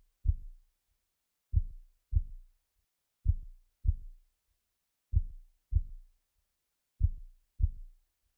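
Slow heartbeat sound effect: pairs of soft, low lub-dub thuds, four pairs repeating about every two seconds.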